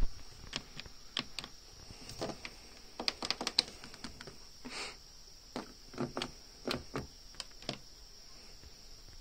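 Irregular sharp clicks at the controls of a Beko washing machine as they are worked, with a brief hiss near the middle and a faint steady high whine underneath; the machine does not start a cycle.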